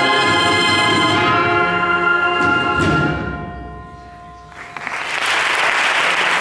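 Bugle-and-drum band (banda de cornetas y tambores) sounding the closing chords of a processional march; the chords cut off about three seconds in, leaving one note ringing away. About a second later an audience breaks into loud applause.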